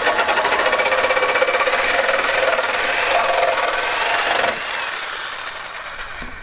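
Corded jigsaw cutting across a 1x3 soft pine board, the motor and reciprocating blade buzzing steadily. About four and a half seconds in, the blade clears the board and the saw runs on more quietly, fading.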